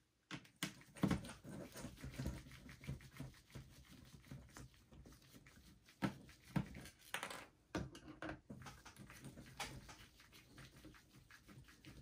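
Faint, irregular clicking and ticking of a small screwdriver turning the bottom-cover screws of a Dell Latitude E5450 laptop, with a few louder sharp taps about a second in and again between six and ten seconds in.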